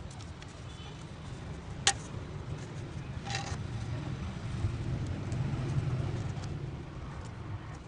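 Low rumble of road traffic, swelling for a couple of seconds in the second half as a vehicle passes. A sharp click comes about two seconds in, and a softer one a second and a half later.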